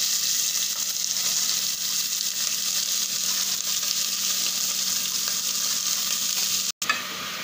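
Freshly added chopped onions sizzling in hot oil with mustard seeds and curry leaves in a steel pot: a loud, steady hiss. The audio drops out briefly near the end, and the sizzle is quieter after it.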